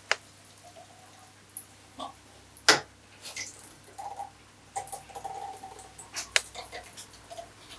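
Scattered clicks and knocks of metal parts being handled on a WP AER 48 motorcycle fork's oil-filled damping cartridge at the vise, with one sharp knock about two and a half seconds in and a few faint short squeaks.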